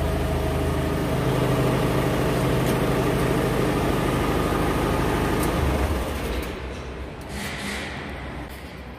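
Vehicle engine idling steadily, then winding down and going quiet about six seconds in, with rubbing and handling noise close by.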